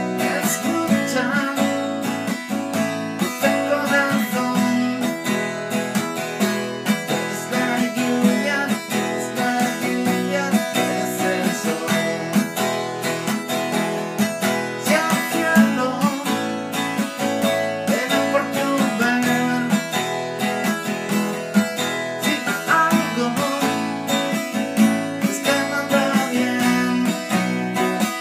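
Acoustic guitar strummed steadily through an instrumental passage, without singing.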